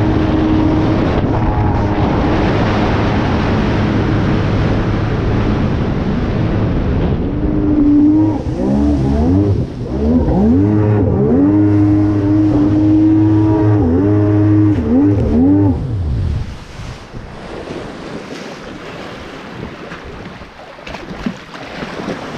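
Jet ski engine running hard, then revved up and down several times in quick throttle swells. About sixteen seconds in the engine sound falls away, leaving quieter water and wind noise.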